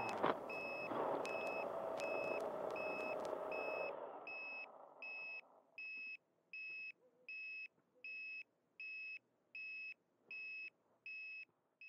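A quadcopter's electric motors spin down to a stop at the very start, with a knock just after. Then an electronic beeper sounds short high beeps at a steady pace, about one and a half a second, heard on their own from about four seconds in.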